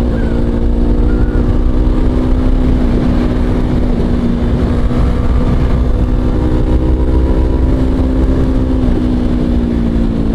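Motorcycle engine running at a steady cruising pitch while riding, with wind rumble on the microphone; the pitch sags slightly near the end.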